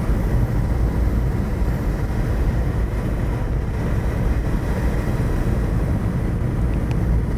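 A vehicle driving, with steady engine and road rumble.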